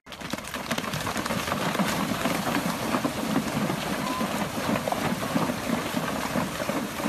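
A herd of horses galloping along a gravel bank and through a shallow river: a steady, dense mix of many hoofbeats and splashing water.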